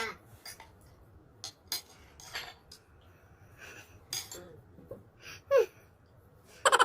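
A spoon clinking and scraping now and then against a bowl of halo-halo being eaten, a few separate clicks spread out, with one short voiced sound a little past halfway.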